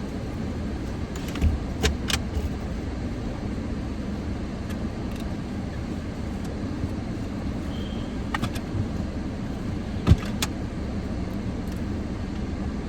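Steady low rumble of a car heard from inside the cabin, with a few short clicks and knocks, the loudest about ten seconds in.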